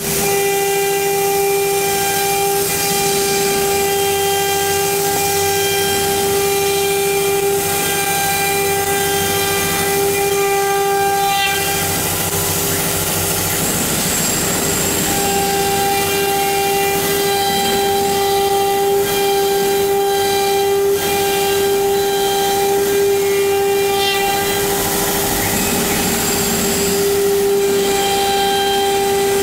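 CNC router spindle whining at a steady high pitch as its bit cuts outlines into MDF board. The whine drops out for a few seconds near the middle, leaving a rougher cutting noise.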